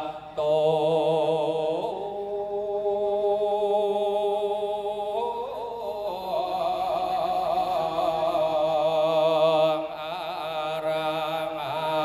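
A male voice chants the Isan-style su khwan blessing into a microphone, holding long sung notes that step up in pitch twice and then waver. A steady low tone runs underneath.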